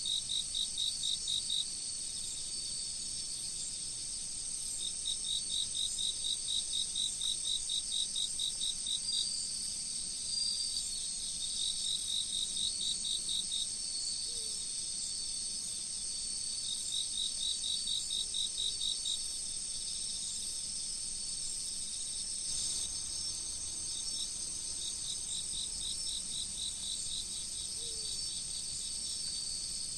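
Chorus of autumn crickets: a continuous high trill with repeated trains of rapid, evenly spaced chirps, each train lasting a few seconds before pausing.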